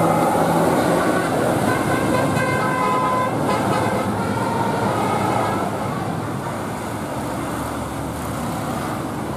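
A bus's multi-tone 'telolet' horn tooting short pitched notes over heavy road and engine noise, the notes falling away after the first few seconds.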